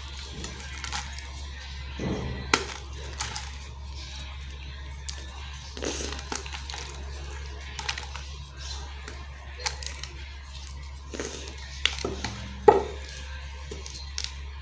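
Gym chalk being crushed and crumbled, with irregular crunches and sharp cracks; the loudest crack comes near the end.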